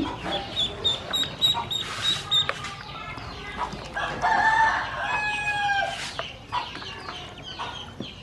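Ducklings peeping, with many short, high cheeps and a longer, drawn-out call of about a second and a half near the middle.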